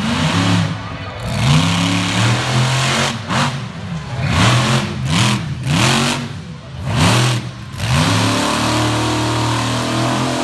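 Monster truck engine revving hard again and again, about ten times, each rev rising and falling in pitch, the loudest ones with a harsh full-throttle exhaust rush.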